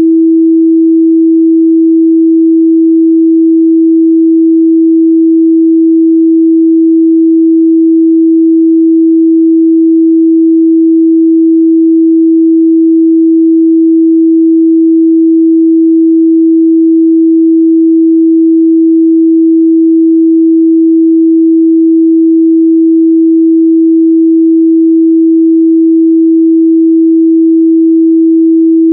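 A steady, continuous 326 Hz sine-wave test tone, a single pure pitch held at a constant loudness.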